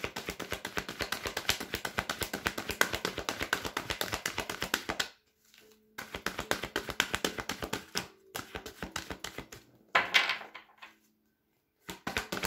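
A deck of tarot cards being shuffled by hand: a fast run of papery card clicks for about five seconds, then a short pause and several shorter runs of clicks.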